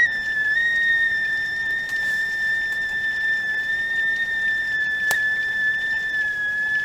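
Stovetop kettle whistling steadily at the boil: one high, piercing tone with a slight waver in pitch. A brief click sounds about five seconds in.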